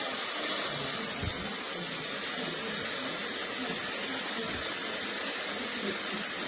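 Beurer hair dryer running steadily, blowing a strong rush of air, with a thin high whine that drops out about half a second in.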